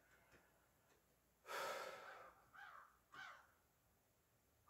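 A man's audible breath, a single heavy exhale about a second and a half in, followed by two short, faint sounds.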